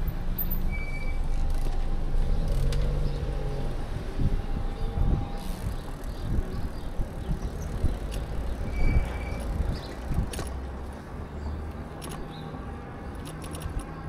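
Ride noise from an e-bike moving through city traffic: a steady low rumble with scattered rattling clicks, easing off about ten seconds in.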